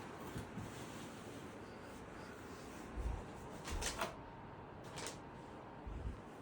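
Faint handling of cardboard component boxes and packaging: a few soft low thumps and several short light clicks, with quiet room tone between them.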